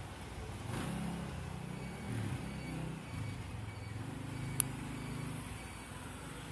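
Low steady drone of a vehicle engine running in the background, with one sharp click about four and a half seconds in.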